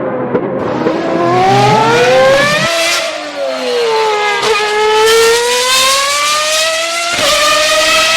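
Formula 1 car engine running at high revs, its pitch climbing over the first few seconds, dipping, then climbing again, with sudden breaks in pitch about three and about seven seconds in.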